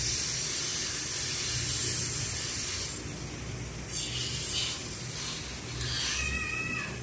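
Pen scratching on paper in short strokes as words are written on a card, over a steady hiss. A brief high tone sounds near the end.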